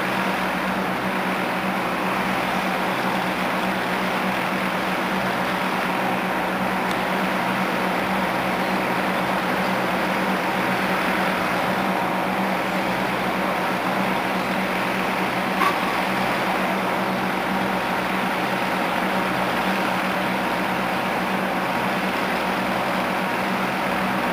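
Steam locomotive Wa 165 drifting slowly with a steady hiss of steam and a low steady hum, with no exhaust beats. A single sharp click comes about two-thirds of the way through.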